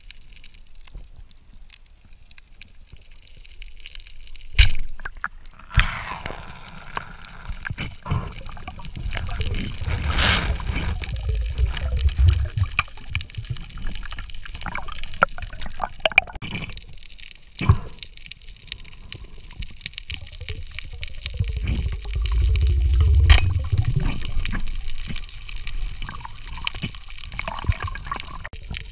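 Underwater water noise picked up by a camera below the surface: uneven gurgling and sloshing with stretches of low rumble, broken by a few sharp knocks.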